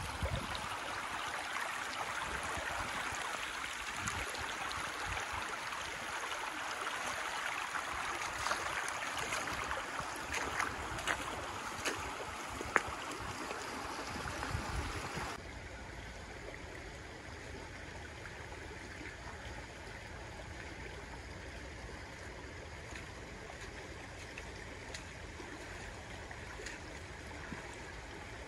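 Shallow stream running over a gravel and pebble bed: a steady rush with a few faint clicks. About halfway through it drops suddenly to a quieter, duller wash.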